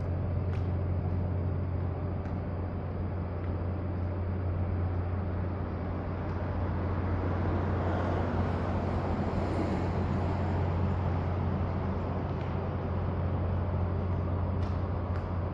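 Steady outdoor road traffic noise with a constant low rumble, swelling as a vehicle passes about eight to ten seconds in. A few faint clicks near the start and the end.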